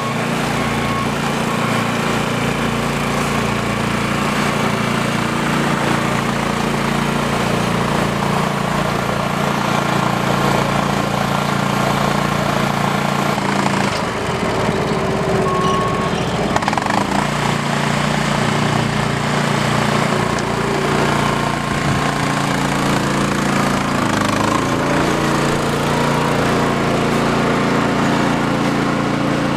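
Yanmar diesel engine of a horse-drawn power cart running steadily under load, driving a round baler through its PTO; its note wavers briefly about halfway through.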